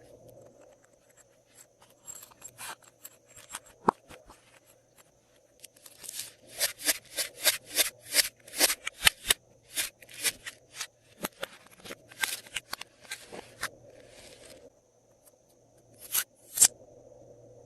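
Glossy slime being worked by hand, giving a run of sharp clicking and crackling pops: a few about two seconds in, a dense stretch through the middle, and two more near the end.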